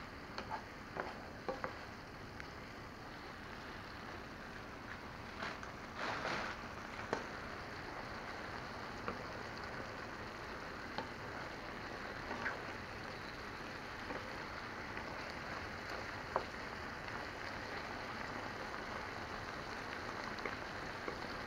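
Chicken, pork and vegetables in sauce cooking in a frying pan, a steady sizzling hiss, with scattered clicks and scrapes from a wooden spatula stirring against the pan.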